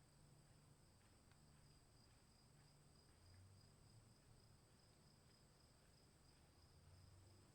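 Very faint storm ambience. A steady high insect drone, like crickets, runs throughout, and a soft low rumble swells twice, around the middle and near the end.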